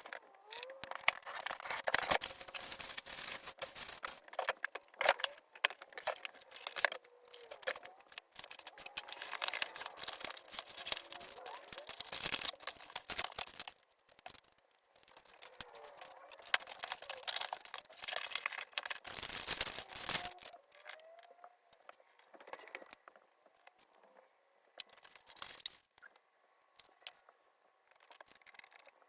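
PC parts packaging being handled and opened: crinkling plastic and paper, tearing, and many sharp clicks and knocks. The noise is dense for the first twenty seconds or so, then thins out to occasional rustles and clicks.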